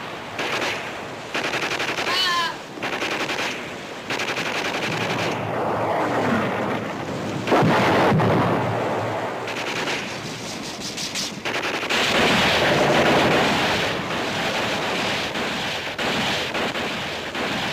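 Battle sound effects from a film soundtrack: rapid machine-gun and rifle fire crackling throughout, with a heavy blast about seven and a half seconds in.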